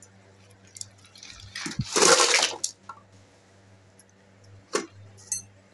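Half-fried potato strips being lifted from hot deep-frying oil with a perforated steel skimmer and tipped onto a steel plate. A loud rush of sizzling and sliding lasts about a second, starting about a second and a half in, with a couple of knocks at its start. Light clicks of the skimmer follow later.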